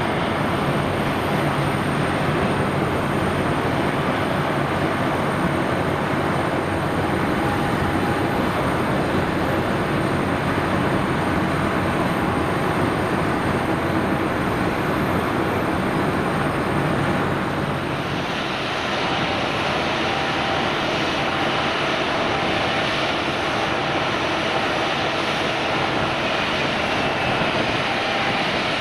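Jet airliner engines running on the apron: a steady rumble with a thin high whine, the sound changing about eighteen seconds in.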